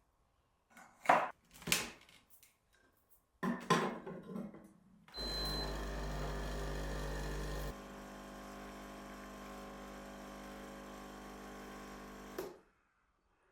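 A few clicks and knocks, then an electric coffee machine runs with a steady humming drone for about seven seconds. It is louder for the first two or three seconds, settles to a quieter steady hum, and stops with a click near the end.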